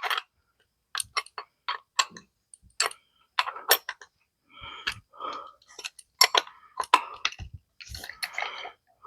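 Small metal SU carburettor parts being handled and fitted by hand during reassembly: irregular light clicks and a few short scrapes.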